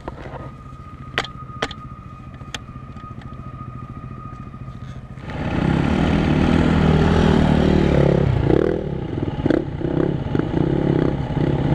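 KTM EXC-F 350's single-cylinder four-stroke engine idling quietly, with a few sharp clicks. About five seconds in, after a cut, the dirt bike's engine runs much louder, its revs rising and falling unevenly over rough ground with clattering knocks.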